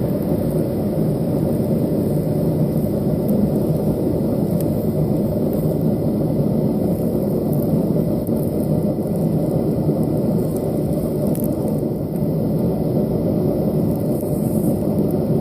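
A forge running with a steady, even noise, mostly low in pitch, as a quarter-inch steel rod heats in it.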